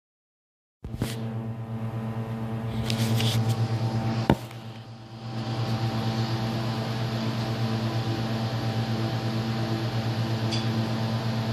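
A steady low machine hum that starts about a second in, with a sharp click about four seconds in, after which the hum dips briefly and builds back up.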